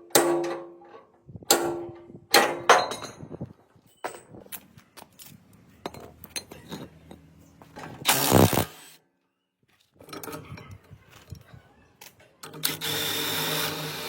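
Metal parts clanking with a ringing tone three times in the first three seconds, then light taps and clicks. A power tool runs for about half a second around eight seconds in, and again steadily for about a second and a half near the end.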